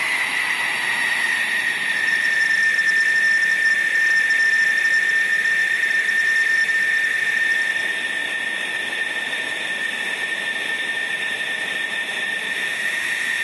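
F-16 fighter's jet engine running at ground idle: a steady high-pitched whine over a hiss. The whine drops slightly in pitch during the first second, then holds steady, and eases a little in loudness about eight seconds in.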